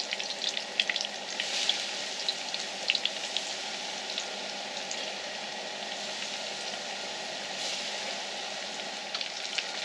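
Battered crappie fillets frying in hot butter-flavored Crisco shortening in a skillet: a steady sizzle with crackling pops, busiest in the first few seconds and again near the end.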